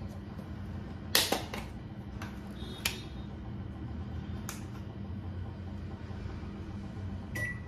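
A small plastic food tub and its snap-on lid being handled: about five sharp clicks and knocks, the loudest two close together about a second in, over a steady low hum.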